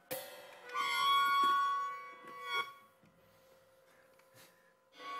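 Melodica playing a loud held chord for nearly three seconds, then fading to a faint tone before a new note starts near the end. A few light drum-kit strokes fall between, in a free jazz duo improvisation.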